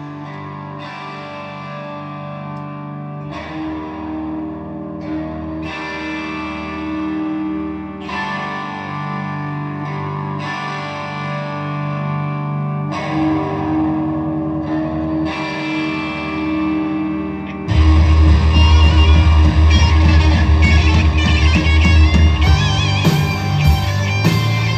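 Live electric guitar playing slow, ringing chords that change every two to three seconds. About eighteen seconds in the music suddenly turns much louder and heavier, with a deep low end.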